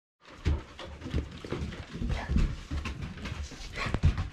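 Several dogs panting and moving about on a wooden deck, with irregular thuds of paws on the boards.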